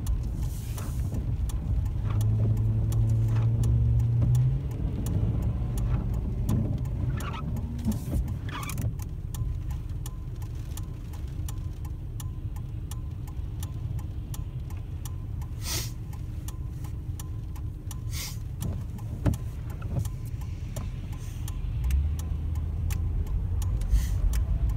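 Car engine and wet-road tyre noise heard from inside the cabin while driving in rain: a steady low rumble, with the engine note coming up about two seconds in and again near the end. Scattered sharp taps and clicks sound over it.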